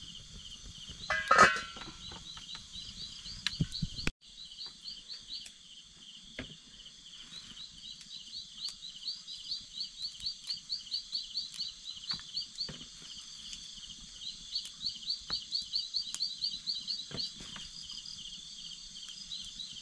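Insects chirping in a steady rhythm, several short rising chirps a second over a continuous high-pitched drone. A loud clatter about a second in.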